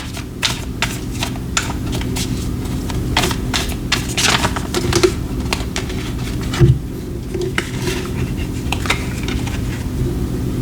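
Tarot cards being handled on a table: irregular light clicks and taps, over a steady low hum.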